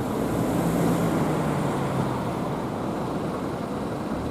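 Road traffic noise: vehicles passing on a street, with a steady low engine hum during the first half.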